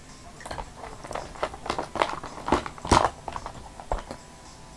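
Small makeup containers and tools clicking and knocking together as they are rummaged through and picked up, in irregular taps with the sharpest clacks about two and three seconds in.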